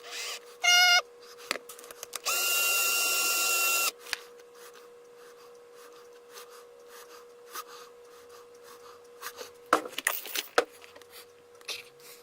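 Bench work on a controller. There is a short high squeal, then a loud burst of about a second and a half from a small electric tool running steadily with a whine. Scattered clicks and knocks from handling follow, over a steady electrical hum.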